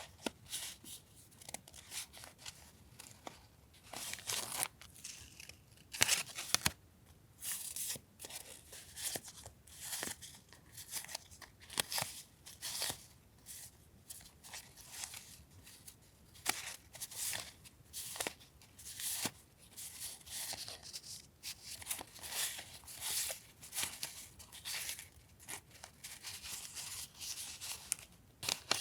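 Paper and plastic packaging rustling and crinkling in short, irregular bursts as stationery pieces are unwrapped and handled one after another.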